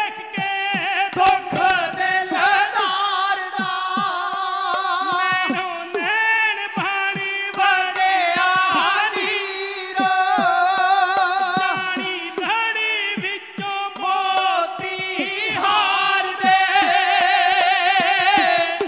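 Punjabi dhadi singing: male voices sing a melody with long, wavering held notes, accompanied by a bowed sarangi and regular strokes on the dhadd, the small hourglass drum.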